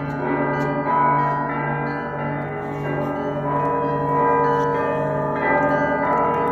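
Russian Orthodox church bells rung together: a deep bell hums underneath while smaller bells are struck about twice a second in a repeating pattern.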